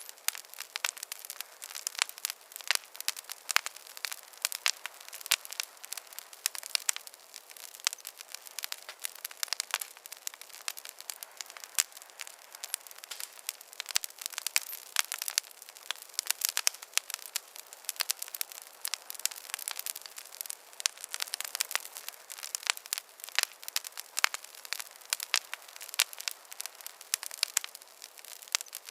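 Wood fire crackling in a fireplace: a dense run of irregular snaps and pops over a soft hiss, with no low rumble.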